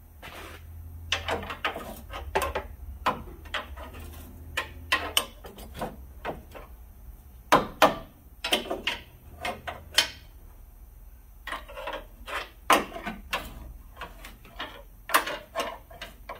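Steel pry bar levering at a car's front lower control arm, giving irregular metal clanks and knocks as the bar shifts and bites against the arm and its mounting.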